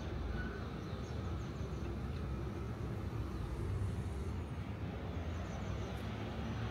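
Steady road traffic noise: vehicles running on the road.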